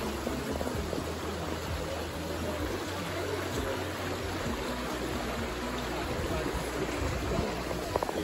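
Shallow river rushing steadily over stones and gravel, an even broad rush of running water. A couple of short knocks near the end.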